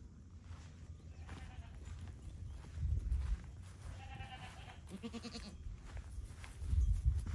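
Young goat kids bleating: a short high bleat about four seconds in and a lower bleat about a second later. Low rumbles come around three seconds in and again near the end.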